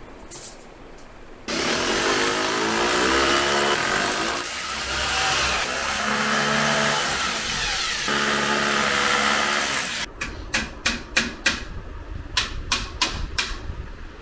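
Electric drill boring into a wall, starting about a second and a half in and running with a steady whine that shifts pitch a couple of times until it stops about ten seconds in. A quick run of sharp clicks and knocks follows near the end.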